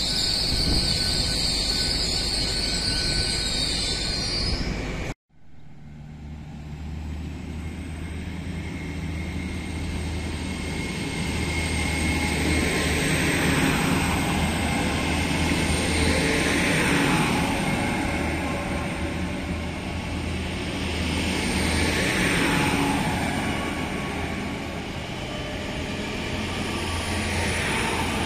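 GWR Hitachi Intercity Express bi-mode train passing through a station on its underfloor diesel engines. For the first few seconds a high, steady wheel squeal rides over the running noise. The sound then cuts out briefly about five seconds in and comes back as a steady low engine drone, with a rush of noise rising and falling each time a coach's bogies go by.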